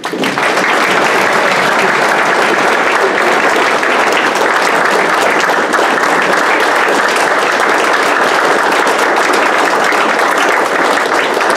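A room full of people applauding, breaking out all at once and keeping up steadily.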